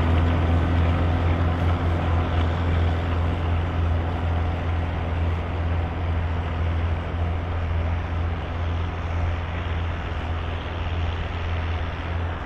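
Volvo BM farm tractor's diesel engine running steadily, gradually getting quieter.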